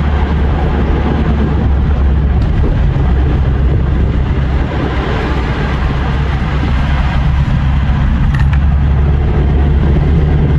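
Steady low drone and road noise inside the cabin of a Ford Laser TX3 cruising along.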